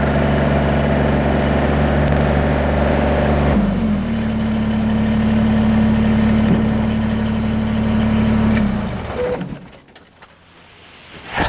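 Kubota BX23S tractor-loader-backhoe's three-cylinder diesel engine running steadily. Its note changes about three and a half seconds in, and it is shut off about nine seconds in, running down within a second. A single short click comes near the end.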